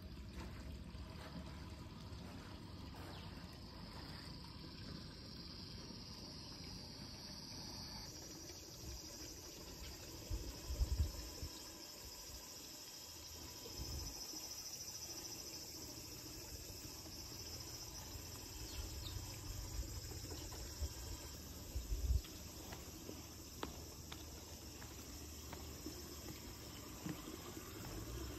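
Insects chirring steadily in a high, even drone that grows louder about eight seconds in. A few short low thumps come around the middle and again later.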